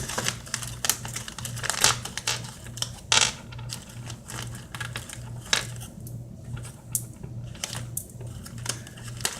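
Skittles being opened and poured out of their packet, the small hard-shelled candies making irregular clicks and rattles as they drop onto a surface.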